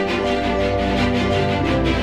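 Background music with sustained pitched notes over a steady pulse, a deep bass line coming in at the start.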